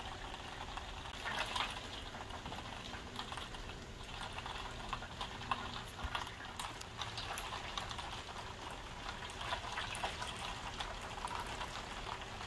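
Heavy rain falling, a steady wash of noise with many small ticks of drops striking.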